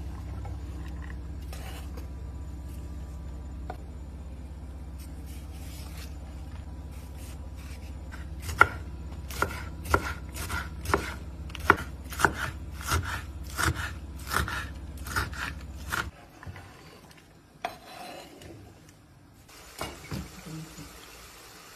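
Chef's knife chopping long green peppers on a wooden cutting board: a few scattered strikes at first, then about two sharp strokes a second over a low steady hum. Both stop suddenly, and near the end chopped lamb liver sizzles faintly in a frying pan.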